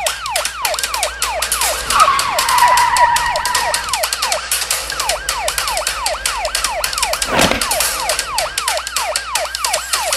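Police siren sound effect wailing in quick, repeated downward sweeps, two to three a second, over a dense rattle of clicks. A brief held squeal comes in about two seconds in.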